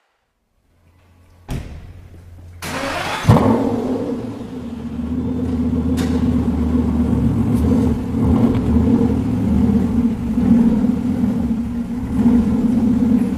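Aston Martin sports car engine starting: a faint whirr and a click, a brief burst of cranking, then the engine catches with a loud flare of revs about three seconds in. It settles into a steady idle with small blips, echoing in the concrete underground car park.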